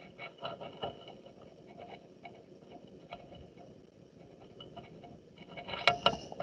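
Pen writing a short note in the margin of a paperback book page: faint, quick scratching strokes on paper, with a louder cluster of strokes and taps near the end.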